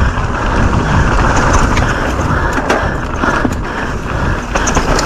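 Downhill mountain bike running fast over a dirt trail: a loud, steady rush of wind on the microphone and tyre rumble, with frequent sharp rattling clicks from the bike.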